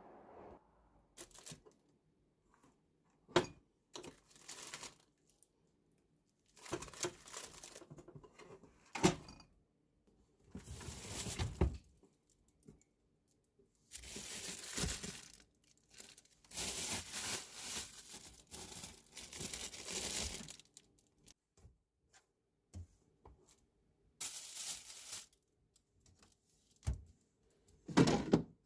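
Food packaging being handled, crinkling and tearing in repeated bursts with short pauses between, and a few sharp knocks.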